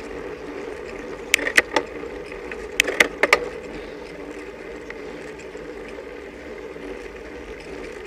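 Steady riding noise from a camera on a road bike climbing slowly, with two short clusters of sharp clicks, about a second and a half in and again around three seconds in.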